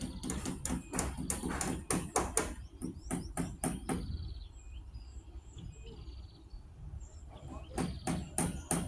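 A run of quick, sharp clicks or taps through the first half and again near the end, with small birds chirping faintly in the quieter stretch between.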